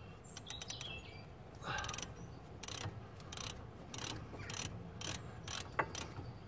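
Hand ratchet and socket winding in a front brake caliper carrier bolt, its pawl clicking in short bursts on each back-swing, about two bursts a second, with one sharper metallic click near the end.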